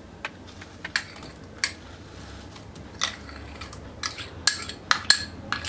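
Metal spoon clinking against a bowl and a steel mixer jar while ice cream is scooped into the jar: about ten scattered clicks, coming closer together in the second half.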